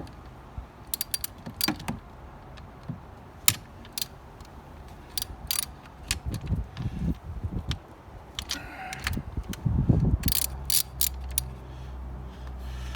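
Ratchet wrench clicking in short runs and metal parts clinking as battery cable terminal fittings are worked on and tightened, with a few duller low knocks in the middle.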